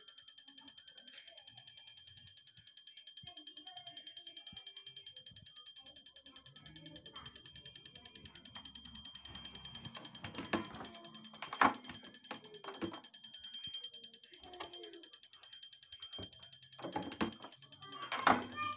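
Kobelco common-rail diesel injector ticking rapidly and evenly as its solenoid is pulsed on a test bench, with a few louder knocks and clicks about halfway through and near the end.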